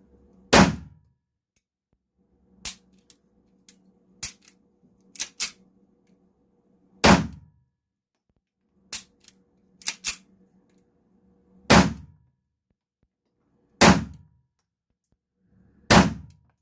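Walther P22 .22 LR pistol, unsuppressed, fired five times at irregular intervals, each shot a sharp crack with a short echo off the indoor range walls. Quieter clicks and clanks fall between the shots, as the pistol suffers failures to feed.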